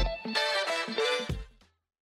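Closing theme music with a low beat, ending on a last hit and stopping about one and a half seconds in.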